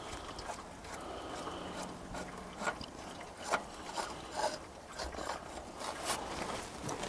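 Scattered clicks, knocks and scrapes of hand tools at work on a truck during an oil change, a few sharp clicks at uneven spacing over a faint rustle.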